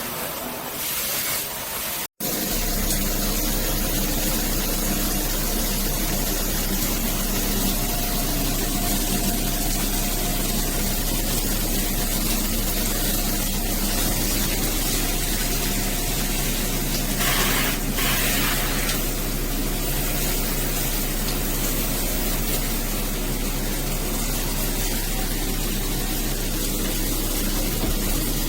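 Shower head spraying water steadily, with a steady low hum underneath; the sound cuts out for an instant about two seconds in, then carries on.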